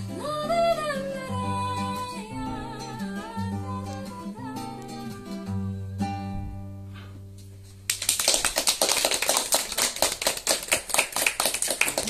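A song with guitar accompaniment and a singing voice ends, its last chord dying away. About eight seconds in, audience applause breaks out suddenly.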